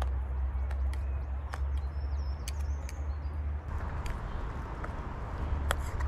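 Butter and finely chopped wild garlic being stirred together in a bowl with a utensil: scattered light clicks of the utensil, over a steady low rumble, with a bird chirping briefly about halfway through.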